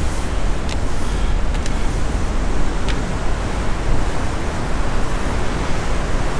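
Steady roar of wind and ocean swell, with wind buffeting the microphone, and a few faint clicks in the first few seconds.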